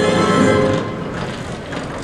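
Dramatic film soundtrack: held music chords that drop away about a second in, leaving a low rumbling noise.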